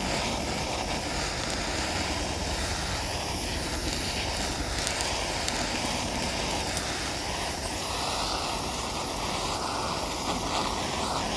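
Handheld propane torch burning with a steady rushing hiss as its flame is played over a brown-sugar glaze to caramelize it. The tone shifts slightly about eight seconds in.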